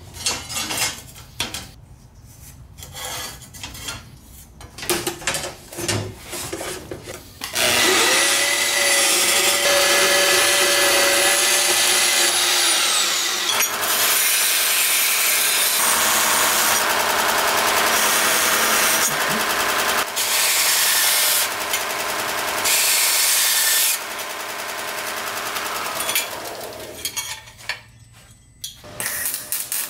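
Steel plate clattering as it is handled. Then a Milwaukee portable band saw cuts through the steel plate with a steady whine, and a belt grinder grinds the cut pieces, running steadily with a few changes in level before it drops to a lower hum near the end.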